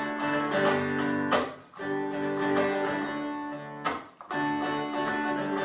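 Small-bodied acoustic guitar strummed in an instrumental passage, chords ringing, with no voice. Twice the sound drops away briefly between chords, about a second and a half and four seconds in.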